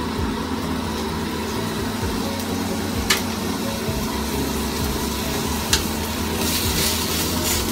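Ginger slices frying in a little oil in a frying pan: a faint sizzle over a steady low hum, with two sharp ticks partway through and a brief louder hiss near the end.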